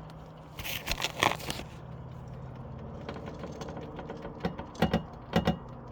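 Car jack being let down slowly under the car, with a burst of metallic scraping and rattling about a second in and three sharp clicks near the end as the suspension settles onto the wheel.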